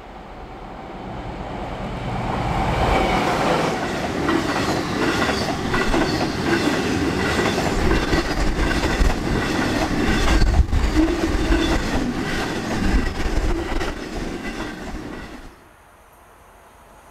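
A class 60 diesel locomotive passes with a freight train. It grows louder over the first few seconds, then its engine runs under the steady clickety-clack of the wagons' wheels over the rail joints. The sound cuts off sharply near the end.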